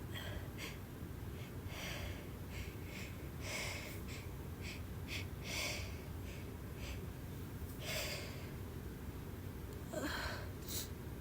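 A person's short gasping breaths and sniffs, about a dozen over eleven seconds, with a few louder gasps: the hitching intakes of a sneeze building.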